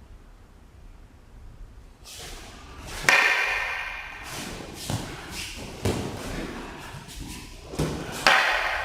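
Several sharp thumps and knocks from a wooden-oar (eiku) kobujutsu bunkai, each ringing on with echo, about a second or two apart, with rustling movement between them.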